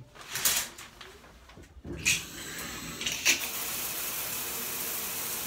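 A brief rustle near the start, then a bathroom shower is turned on about two seconds in and runs with a steady hiss of spray.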